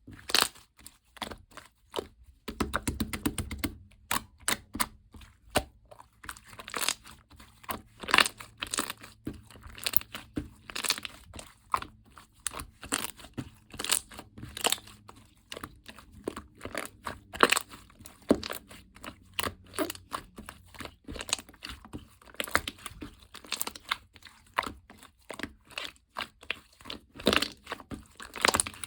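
White all-glue 'milk' slime being squished and pressed by hand, giving off irregular crackling clicks and pops several times a second, with a fast run of crackles about three seconds in.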